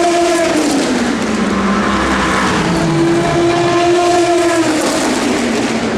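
Racing car engine at full song trackside. Its note drops about a second in and climbs back a little after three seconds, like a car lifting and then accelerating again.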